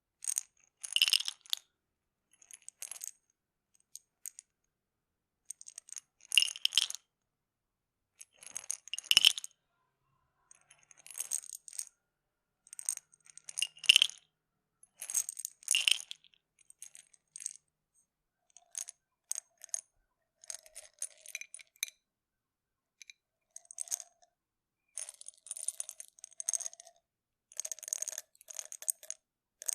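Plastic pill bottle being handled: pills rattling inside and the cap clicking as it is opened and closed, in short bursts every second or two with silent gaps between.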